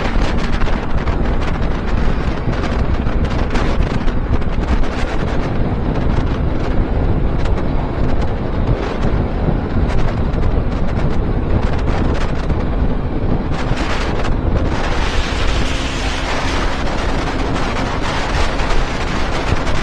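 Heavy wind buffeting on the microphone of a camera on a motorcycle riding at speed, with the bike's engine running steadily underneath. The hiss grows brighter about two-thirds of the way through.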